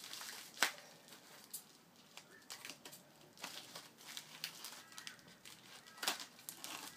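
Plastic-wrapped card deck and its packaging being handled, rustling and crinkling, with a sharper click just under a second in and another near the end.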